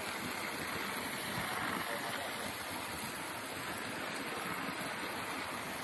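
Steady rushing spray of a fire hose jet hitting burnt corrugated zinc roofing and rubble, damping down smouldering embers after a house fire.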